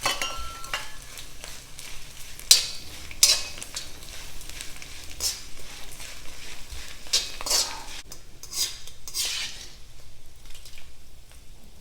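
Cornflakes frying in hot oil in a kadai, sizzling, while a utensil stirs them with irregular scrapes and clinks against the pan.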